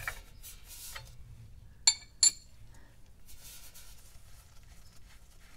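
Two sharp metallic clinks about a third of a second apart, a steel wrench knocking against the filler plug of a Ford Model A transmission case as the plug is worked loose to check the gear oil, with a shop rag rubbing on the case afterwards.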